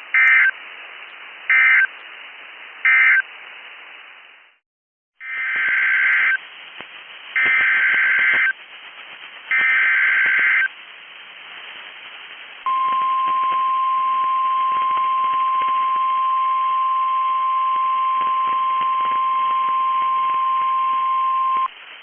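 Emergency Alert System audio received over radio: three short screeching SAME data bursts (the end-of-message code), a moment's dropout, then three longer data bursts (the header of a new alert), followed by the steady 1050 Hz warning alarm tone held for about nine seconds, all over faint radio hiss.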